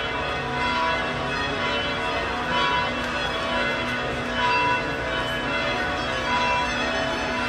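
Church bells ringing, many overlapping struck tones that hang on and blend into one another.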